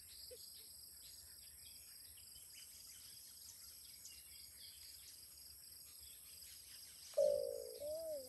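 A faint steady insect drone with scattered small bird chirps. About seven seconds in, a white-eared brown dove breaks in with loud, low, repeated coos.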